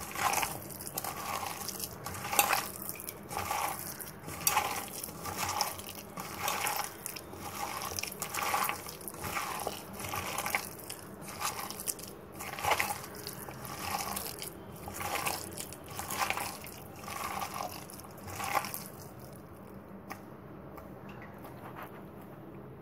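A hand squeezing and kneading a wet mixture of gram flour (besan) and chopped onion in a steel bowl: rhythmic squelching strokes about every three-quarters of a second, stopping near the end. The batter is being worked stiff for onion pakoras.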